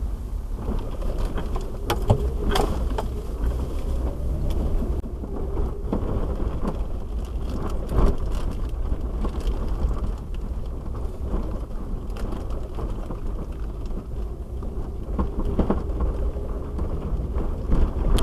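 2001 Jeep Wrangler TJ driving, heard from inside the cabin: a steady low rumble of engine and tyres with scattered knocks and rattles. The Jeep moves from paved road onto a snowy dirt trail.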